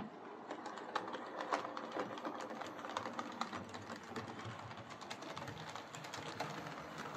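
Hornby OO gauge King class model locomotive running on the track after its repair: its small electric motor whirring steadily, with many small clicks from wheels and track. The sound starts suddenly.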